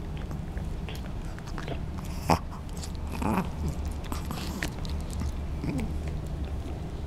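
A dog gnawing on a chew: scattered crunches and clicks of teeth on the chew, with one sharp snap about two seconds in.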